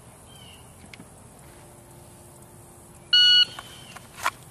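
Shot timer's start signal: one short, high electronic beep about three seconds in, lasting about a third of a second. About a second later comes a short sharp click as the pistol is drawn from the concealed holster.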